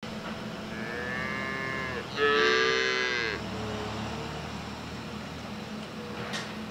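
Dairy cows mooing: a fainter moo about a second in, then a louder, longer moo that falls in pitch, over a steady low hum.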